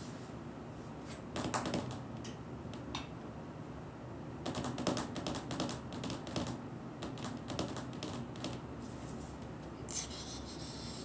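Light clicks and taps in irregular clusters, like typing, with a short hiss about ten seconds in.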